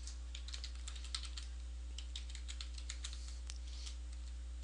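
Typing on a computer keyboard: a quick run of key presses that stops about four seconds in, over a steady low hum.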